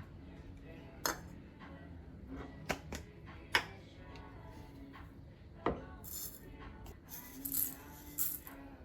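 A series of sharp clinks and knocks from small hard objects being handled, followed near the end by short rustling or scraping sounds, over quiet background music.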